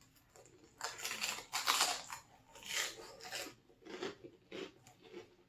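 Crunchy chewing of crispy pork rinds with pizza dip: a string of crisp bites and chews starting about a second in, loudest early on and then lighter.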